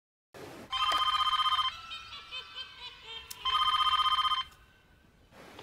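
Telephone ringing: two rings, each about a second of fast trilling tone, a couple of seconds apart.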